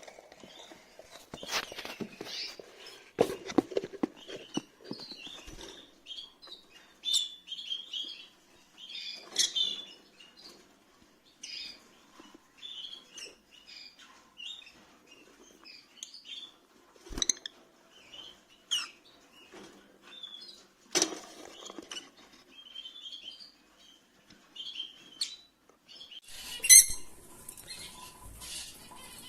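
Rosy-faced lovebirds giving short chirps again and again, mixed with rustling and a few sharp knocks. Near the end the calls turn louder and shriller in a dense burst.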